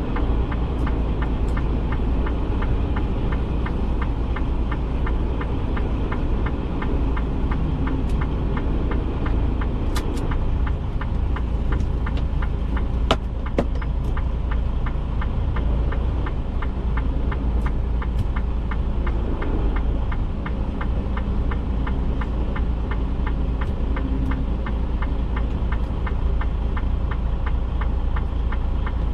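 Tractor-trailer's diesel engine running steadily with an even, rapid clatter. A few sharp clicks sound about ten and thirteen seconds in.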